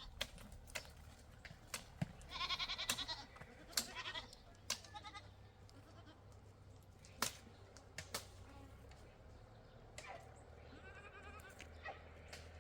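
Sheep bleating: a few wavering bleats, the loudest about two seconds in and fainter ones later. Scattered sharp clicks and knocks are heard between them.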